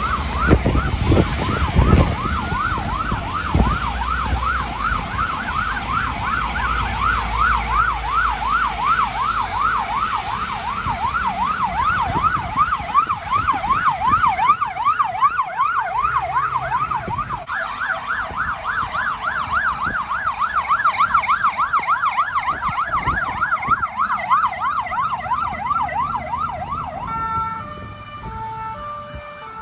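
Emergency vehicle sirens of a fire engine and an ambulance: a fast rising-and-falling yelp, about two to three sweeps a second, over the low rumble of traffic. Near the end the yelp stops and a two-tone siren alternates between a high and a low note.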